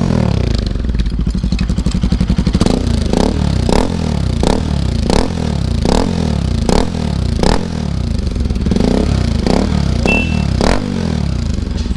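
Bajaj Pulsar RS200's single-cylinder engine running through an aftermarket Akrapovic-style slip-on silencer with its dB killer fitted. It runs steadily, with a string of short sharp cracks a little more than one a second through the middle.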